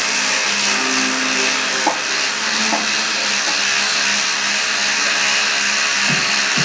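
Two bicycle turbo trainers whirring steadily as road bikes are pedalled on them: an even, loud hiss of rear tyres spinning against the trainer rollers.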